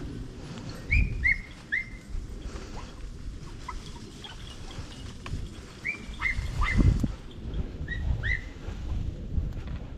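Podenco hounds giving high-pitched yips in quick groups of two or three from within the cane, as they give tongue while working a rabbit's scent, over low rustling and thuds.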